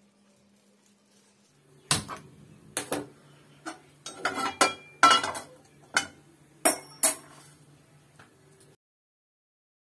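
Metal cookware clattering on a gas stove: about a dozen sharp clinks and knocks as a frying pan and a measuring cup are handled, starting about two seconds in.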